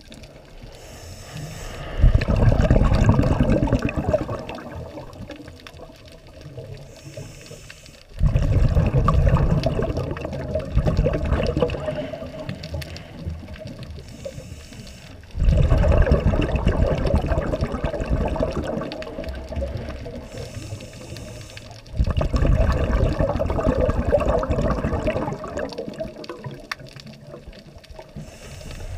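Scuba diver's regulator breathing, heard underwater: four exhalations, each a loud rush of bubbles that starts suddenly and fades over a few seconds, about every six to seven seconds, with a faint hiss of inhalation just before each.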